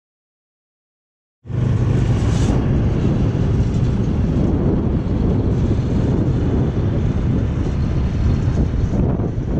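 Motor scooter riding at road speed: a steady engine hum under wind rushing over the microphone. It cuts in suddenly about a second and a half in, after silence.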